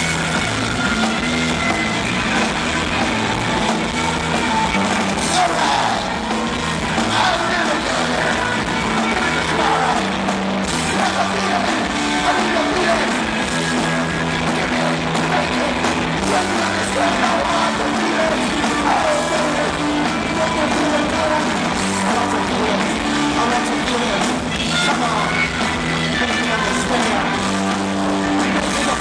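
Live rock band playing through a festival sound system, heard from within the crowd: a repeating bass line under the band, with the singer's voice over it now and then.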